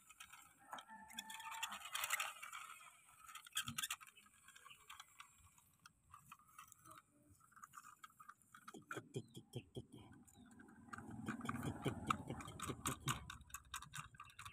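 Small plastic toy construction vehicles pushed by hand over wet mud and grass: scattered scraping and crunching, then from about nine seconds in a fast run of clicking ticks.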